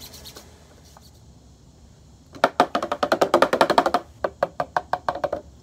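A toothbrush scrubbing a pleated tractor power-steering filter screen wet with diesel: a rapid run of short scratchy strokes, about eight a second, starting a couple of seconds in and lasting about three seconds. The brushing is cleaning clogging debris off the screen.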